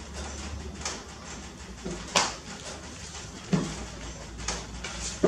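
Small noises from a baby monkey being handled on a lap: a few short clicks and knocks, the sharpest about two seconds in, with a lower thud about three and a half seconds in.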